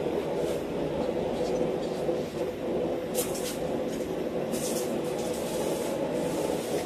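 Blacksmith's forge running with a steady drone while the tong heats. Two short hisses come about three and four and a half seconds in.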